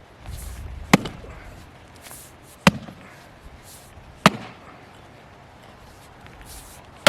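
An axe chopping into a tree stump's wood: four sharp strikes a second or two apart, splitting chunks off along chainsaw cuts.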